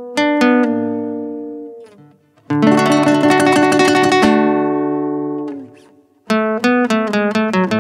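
Acoustic guitar playing an instrumental passage of a hymn accompaniment. Plucked notes ring and fade, then a chord is strummed rapidly for about two seconds and dies away, and after a short gap picked notes start again.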